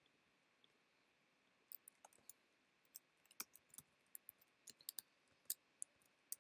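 Typing on a computer keyboard: sharp, irregular keystroke clicks that begin a little under two seconds in and come a few a second.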